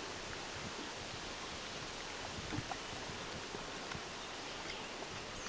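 Steady hiss of outdoor river ambience with wind, with a couple of faint knocks about two and a half seconds in.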